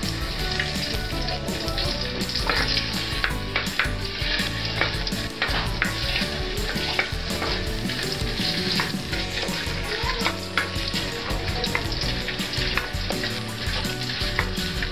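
Small pieces sizzling in hot oil in a wide aluminium wok, stirred with a spatula whose strokes give irregular scrapes and taps against the pan over the steady sizzle.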